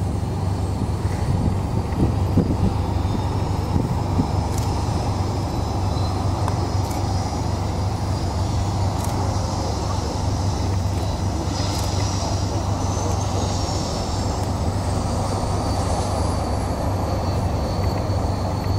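Boeing 737-800 jet engines running during landing: a steady jet roar with a low hum under it. From about twelve seconds in, a high whine rises in pitch over several seconds as the engines spool up after touchdown, typical of reverse thrust.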